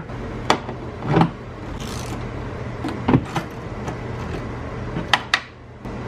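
Scattered metal clicks and clinks of a long socket extension working in an access hole in a Tesla Model S door's steel inner frame, starting a door handle mounting screw. There are about six sharp clicks, two of them close together near the end, over a steady low hum.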